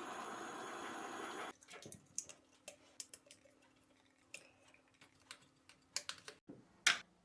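A steady rushing noise for about a second and a half, then scattered light clicks and taps of small hand-tool work while the motor's wires are connected.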